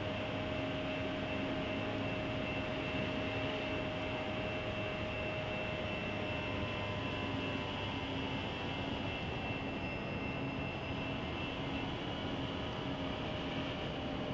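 Steady rumble and hiss of an approaching train heard through a webcam microphone, with faint steady tones over it.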